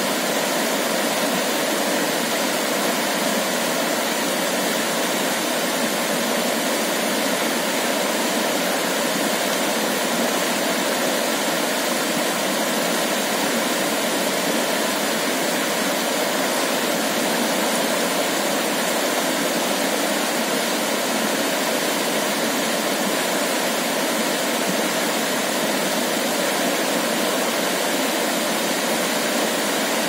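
Shallow rocky stream rushing over boulders through small cascades: a steady, even wash of water noise without let-up.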